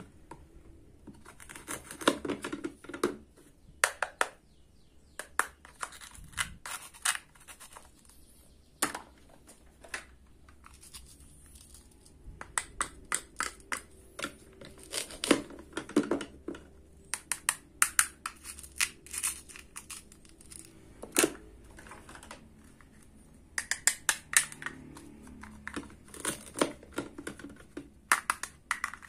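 Plastic toy fruit and vegetables being cut apart with a wooden toy knife: a run of sharp clicks and taps of wood on plastic in short clusters, with brief rasps as the Velcro-joined halves pull apart.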